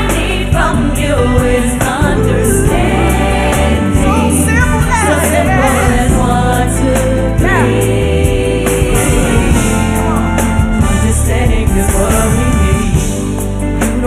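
Female R&B vocal group singing live in harmony over a band backing, with steady bass notes under the voices and the lead voice bending through held notes.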